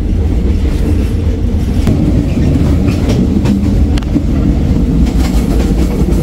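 Passenger train running along the track, heard from inside the carriage: a steady, loud low rumble with scattered clicks and knocks.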